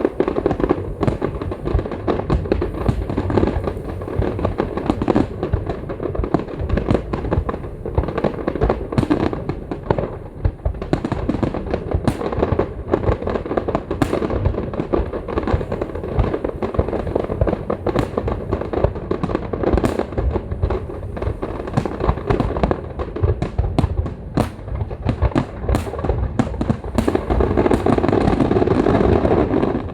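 Fireworks display in a dense, continuous barrage: deep booms overlap with many sharp cracks, with no pause between them.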